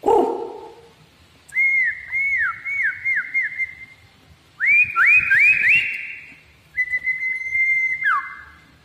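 White-rumped shama (murai batu) singing while held in the hand, opening with a short low harsh sound, then a run of about six quick down-slurred whistles, a few rising whistles, and one long steady whistle that drops away near the end.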